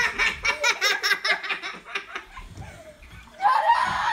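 People laughing: a quick run of 'ha-ha-ha' laughter through the first two seconds, then a louder, higher-pitched burst of laughter near the end.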